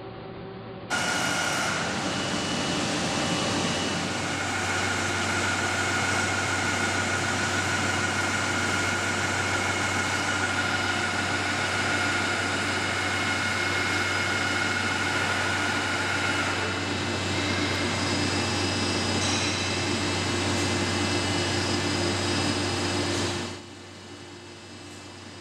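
Steady industrial machine noise with a low hum and several high, steady whines. It starts suddenly about a second in, changes tone partway through, and cuts off suddenly near the end.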